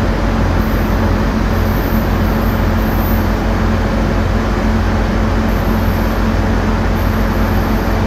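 Caltrain diesel locomotive running steadily while the train stands at the platform: a loud, even engine hum with a rumble of noise over it.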